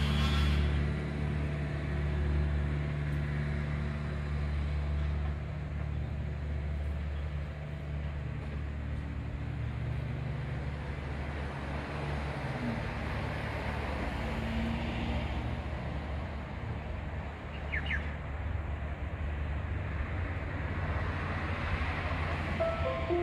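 Steady low engine rumble of a nearby vehicle or road traffic, strongest in the first half and easing into a general traffic hum after about twelve seconds.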